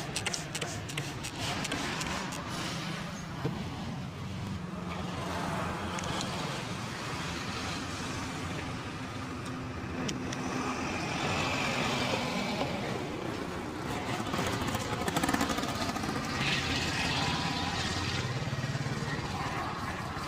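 Road traffic: vehicle engines running steadily, with a few faint clicks.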